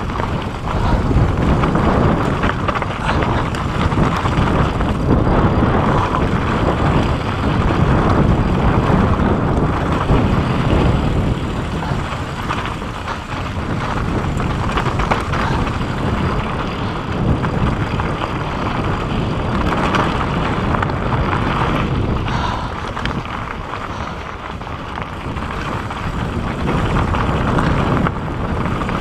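Wind rumbling on the microphone together with the rattling and crunching of a mountain bike over loose rock on a fast descent, with many small knocks from the wheels and frame.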